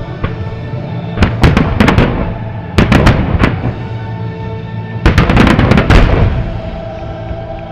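Aerial fireworks shells bursting in three quick volleys of several cracks each, about a second in, about three seconds in and around five to six seconds in, over steady music.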